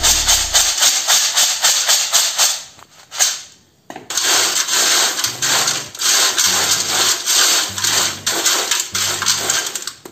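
Crisp fried jackfruit chips rustling and rattling as they are tossed and turned by hand in a stainless-steel colander, mixing in turmeric powder. The rustling stops briefly a few seconds in, then starts again. Low bass notes of background music run underneath in the second half.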